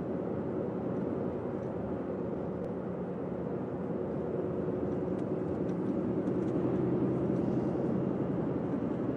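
Steady road and engine noise of a moving car heard from inside the cabin, a low drone that grows slightly louder about two-thirds of the way through.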